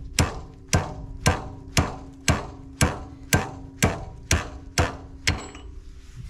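Hammer blows on metal at a steady pace, about two a second, each strike ringing on with a clear tone, as a bent metal part is hammered straight; about eleven blows, stopping about five seconds in.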